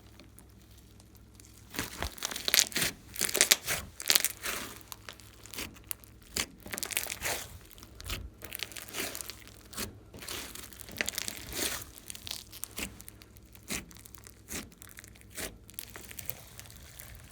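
Slime being squished and kneaded by hand, giving a long run of irregular crackling pops and crinkles that starts about two seconds in and is densest early on.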